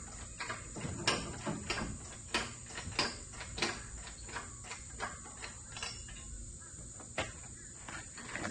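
Hand-pumped hydraulic engine hoist lifting an engine, its pump handle and linkage clicking and clanking irregularly, about two strokes a second.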